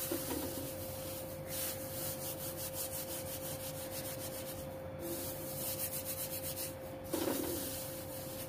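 Dried, roasted fenugreek leaves (kasuri methi) rubbed and crushed by hand in a cast-iron kadai: a dry rustling rasp in quick repeated strokes as the leaves break down into a coarse powder. A faint steady hum sits underneath.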